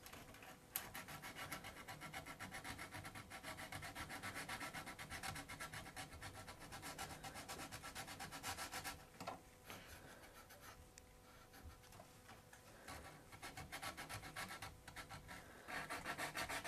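Sandpaper rubbed by hand over a wooden chair rail in quick, short back-and-forth strokes, smoothing a glued repair. The strokes grow lighter for a few seconds in the middle and stronger again near the end.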